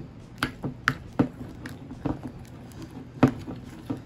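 Fluffy slime made of white glue and shaving cream being stirred and pulled in a glass bowl as the activator takes hold: irregular sticky clicks and squelches, with the sharpest click about three seconds in.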